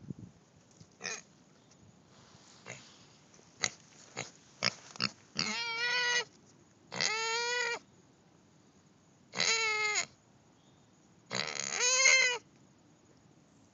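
Potbellied pig giving a few short grunts, then four drawn-out squeals about two seconds apart, the last the loudest: begging for more treats.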